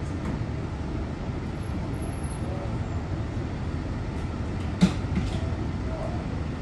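Steady low rumble of the ambient noise aboard a boat on the open sea, with a single sharp knock about three-quarters of the way through.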